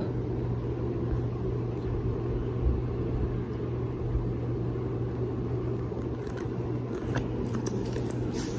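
Steady low background hum and rumble, with a few faint clicks near the end.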